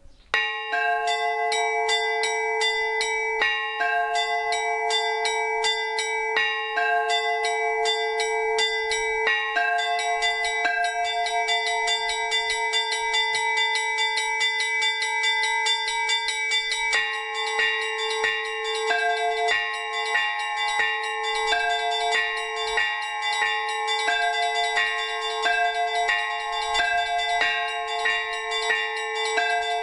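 Orthodox monastery bells rung in the zvon manner, calling to the morning service: several small bells struck in a quick repeating rhythm over the steady ring of a larger bell. It starts suddenly about half a second in and grows busier about halfway through.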